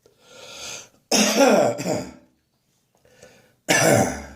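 Chesty cough of a person with a spring cold: after a breath in, two harsh coughs in quick succession about a second in, then another loud cough near the end.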